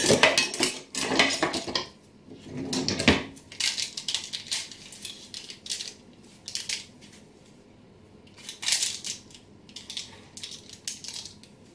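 A spatula scraping and knocking as brownie squares are cut out and lifted onto a plate: a run of short scrapes and clicks, with a duller knock about three seconds in.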